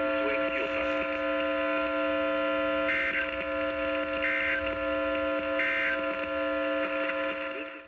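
Three short, identical data bursts of an Emergency Alert System End-of-Message code, about a second and a half apart, over a steady electrical hum made of several constant tones. The bursts mark the close of an alert.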